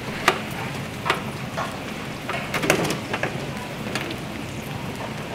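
Big cauldron of cow-head broth boiling hard, a steady rushing bubble, with irregular sharp metal clinks and knocks as a steel hook is worked among the meat against the pot.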